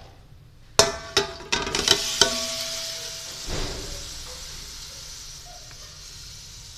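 Raw chicken pieces tipped into hot oil in a steel pot. A few sharp clanks ring off the pot in quick succession, then the chicken sizzles in the oil, the hiss easing off over the next few seconds.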